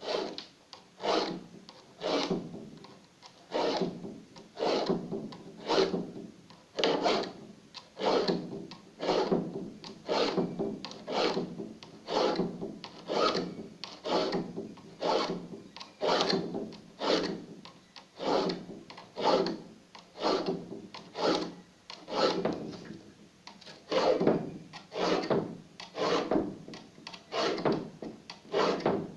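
A hand file drawn back and forth across the teeth of a wood saw to sharpen them: a steady rhythm of rasping strokes, a little over one a second.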